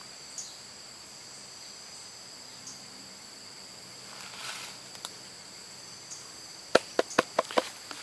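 Steady high-pitched chorus of insects in the undergrowth. Near the end comes a quick run of sharp knocks and clicks, louder than the chorus.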